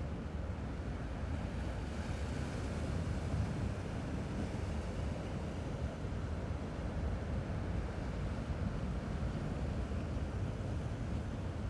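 Steady wash of sea waves along a rocky shore, with a low rumble underneath from wind on the microphone.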